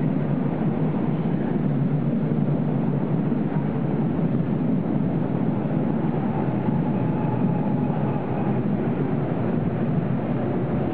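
Train running: a steady low rumble, with a faint whine for a few seconds in the middle.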